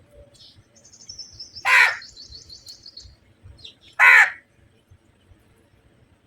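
A crow cawing: two loud, harsh single caws about two seconds apart. A fainter, high, rapid trill from another bird runs underneath through the first half.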